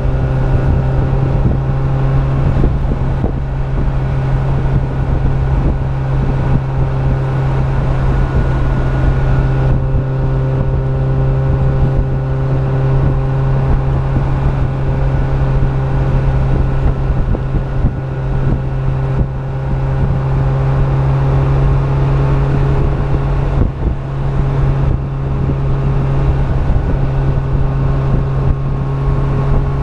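Suzuki SJ413's 1.3-litre four-cylinder engine running at a steady cruise, a constant low drone mixed with road and wind noise on the hood-mounted microphone. The drone dips briefly about three-quarters of the way through.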